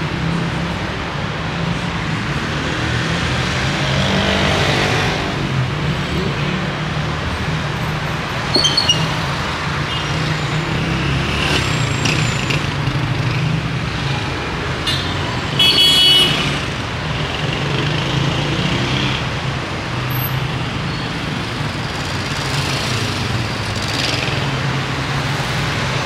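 Busy city street traffic: motor vehicles running steadily past. Two short, shrill, high-pitched sounds stand out, about nine and about sixteen seconds in.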